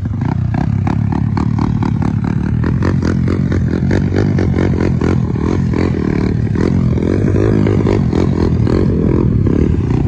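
Motorcycle engines running loud and rough as the bikes ford a shallow river, with water splashing around the wheels.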